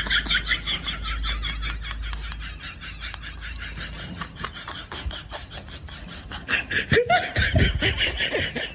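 High-pitched laughing: a fast run of repeated 'ha' sounds, fading somewhat in the middle and growing louder again over the last two seconds.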